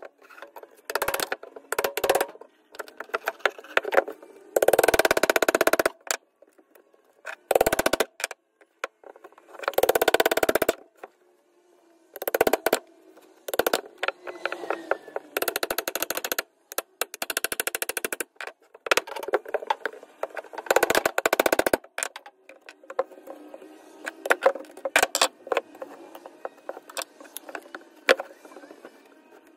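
Claw hammer tapping the spine of a knife blade to split bark and rotten wood off a driftwood branch: bursts of quick metallic taps with ringing, broken by short pauses, and chips of wood breaking away.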